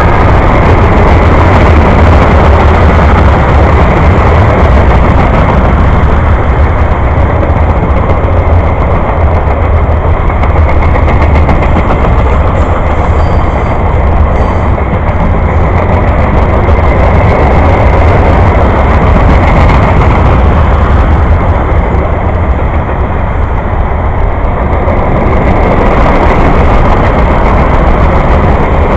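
Freight train cars rolling past on the track: a loud, steady rumble of steel wheels on the rails that holds up with no pause.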